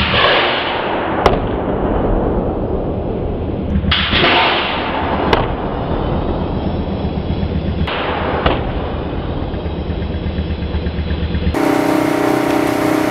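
Pneumatic cannon blasts, deep and drawn out: three sudden blasts about four seconds apart, each fading away in a long hiss and followed by a sharp crack, over a low steady rumble.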